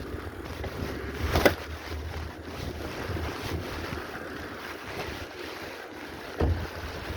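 Wind buffeting the microphone on a moving bicycle, with a steady low rumble and two sharp knocks, about a second and a half in and again near the end.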